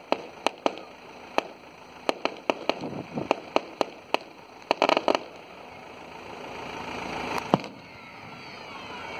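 Aerial fireworks bursting: a quick string of sharp cracks and bangs, thickest about five seconds in, then one more loud bang near the end. Through the second half a steady noise grows louder under the bangs.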